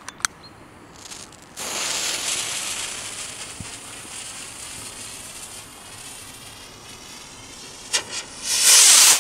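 Firework rocket's fuse hissing as it burns, loud at first and slowly fading. Near the end the rocket motor catches with two sharp cracks and the rocket leaves its launch tube with a loud rushing whoosh, the loudest sound here.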